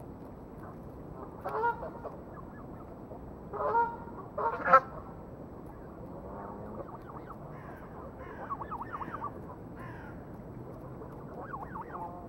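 Canada geese honking: three loud honks in the first five seconds, the third the loudest, followed by quieter, quick repeated sounds from the flock in the second half.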